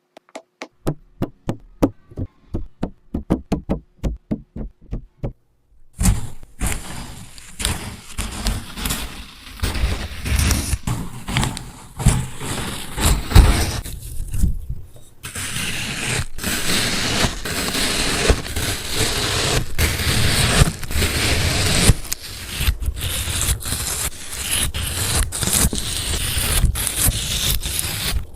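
Slime-soaked sponges being pressed and squeezed: a run of sharp taps for the first few seconds, then steady dense crunching and crackling.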